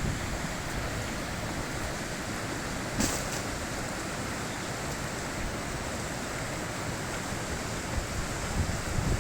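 High-mountain river rushing steadily, an even hiss of flowing water, with one brief click about three seconds in.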